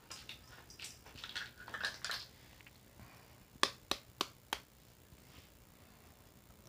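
An egg being cracked: four sharp taps of the eggshell against a hard edge, about a third of a second apart, after a couple of seconds of light crackling and rustling as the eggs are handled.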